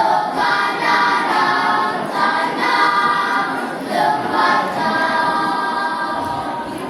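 Elementary school children's choir singing in several voices, held notes flowing in phrases.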